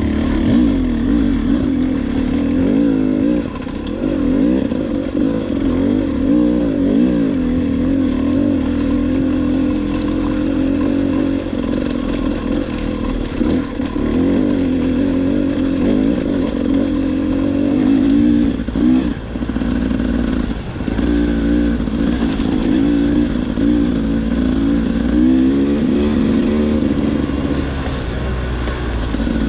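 Dirt bike engine running on a trail ride, its pitch rising and falling with constant throttle changes, with a few clattering knocks a little past the middle.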